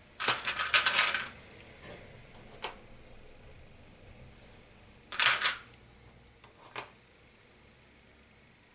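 Small plastic sewing clips rattling in a plastic box as a hand rummages for them, twice, with single sharp clicks between as clips are snapped onto the fabric edge.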